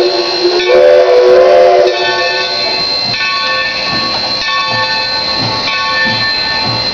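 Steam locomotive No. 3025, a 2-8-2, sounds its chime whistle for about the first two seconds, cutting off sharply. Then its exhaust chuffs slowly as it pulls away, with a steady ringing tone underneath.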